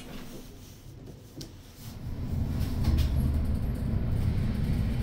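Inclined elevator car travelling down its sloped rail track, heard from inside the glass cabin: a few light clicks, then a steady low rumble that sets in about two seconds in.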